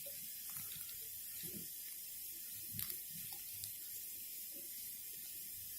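Faint handling sounds of a small candy-kit powder packet and plastic spoon: scattered soft taps and rustles over a steady hiss, with one sharper click about three seconds in.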